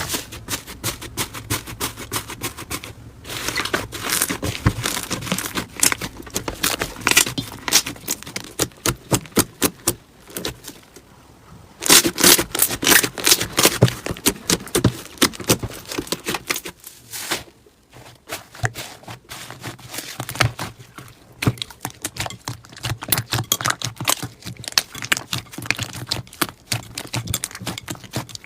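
Slime being squeezed, stretched and poked by hand, making rapid crackling and popping clicks. It gets louder for a couple of seconds just before halfway through.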